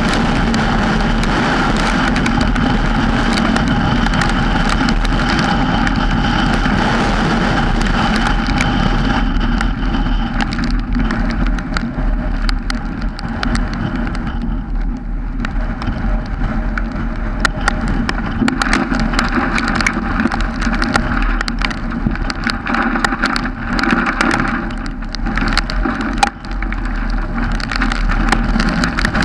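Car running with a steady engine hum and road noise, with scattered ticks of rain hitting the camera.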